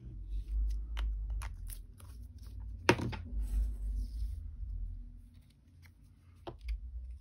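Cardstock pieces being handled and slid about on a cutting mat: paper rustling with dull bumps on the table and several light clicks and taps, the sharpest about three seconds in.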